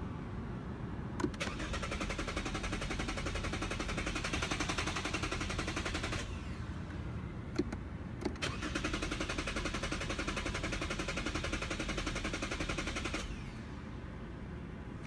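Lexus starter clicking rapidly and evenly in two bouts of about five seconds each, with a single click between them, as the car fails to start.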